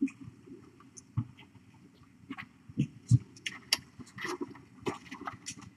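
Kittens romping and wrestling on fleece bedding: scattered soft thumps of small bodies landing, the loudest about three seconds in, then a busy flurry of scratchy clicks and rustles from paws and claws in the second half.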